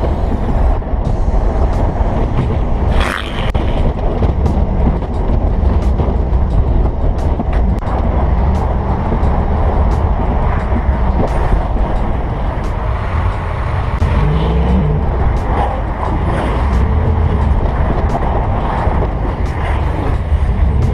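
A vehicle in motion: steady engine and road rumble.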